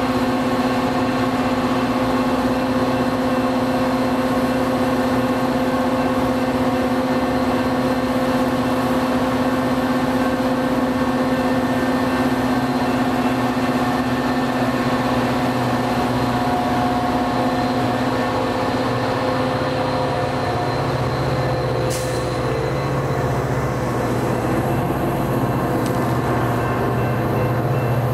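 Metra F40PH-2 diesel locomotive's EMD 16-cylinder engine running steadily as the train pulls out of the station, its steady hum giving way to a lower tone about twenty seconds in.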